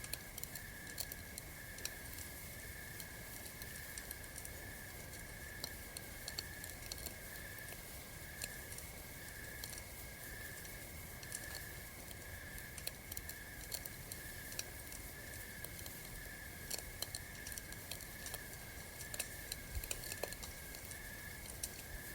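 Campfire crackling with small irregular pops and snaps over a soft low rumble, with a steady high chirp pulsing about one and a half times a second behind it.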